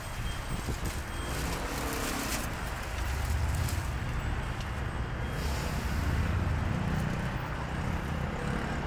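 Street traffic noise: a motor vehicle's low rumble that grows louder about three seconds in and eases off after about seven seconds, over a steady traffic hum.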